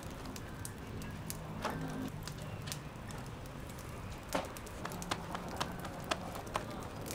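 Bread dough being patted and slapped between a baker's hands, a few short irregular slaps over a steady background hiss.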